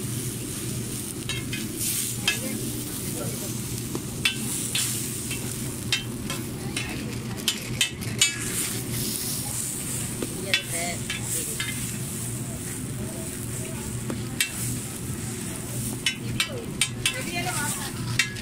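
Egg bun kababs sizzling on a large flat iron griddle, with a metal spatula scraping and clicking against the hot iron in short irregular strokes as they are flipped and pressed. A steady low hum runs underneath.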